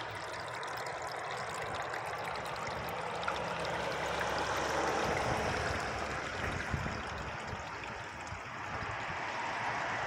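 Steady rushing hiss of water in a flooded rice paddy, like trickling water or light rain on the water and leaves, with a few faint ticks.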